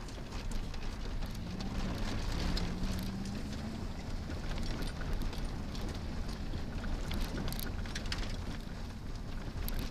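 Subaru Impreza WRX STi heard from inside the cabin, its turbocharged flat-four engine running under a steady low rumble of tyres on a gravel road. Small stones tick and ping against the car's underside throughout.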